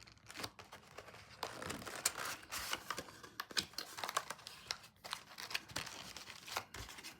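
Packaging on a sealed trading card box crinkling and tearing as it is opened by hand, in a run of irregular crackles and small clicks.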